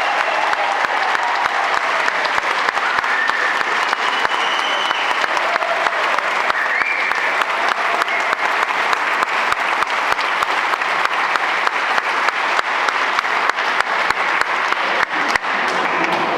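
A crowd applauding steadily, a dense run of hand claps throughout.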